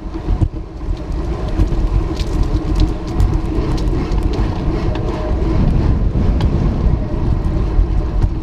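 Strong gusty wind buffeting the microphone of a moving bicycle, a steady rumble with a running hum and scattered small ticks from the ride.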